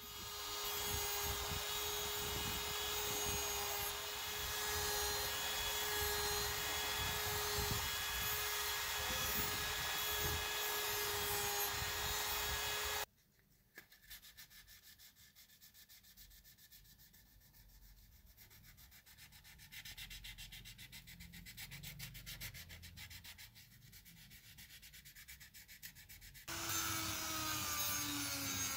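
Sanding on a plastic scale-model car body: a loud stretch of rubbing with a steady hum, which stops suddenly about halfway in, then quieter hand-sanding with a sheet of sandpaper. Near the end a handheld rotary tool with a sanding drum cuts in loudly, its pitch sliding down.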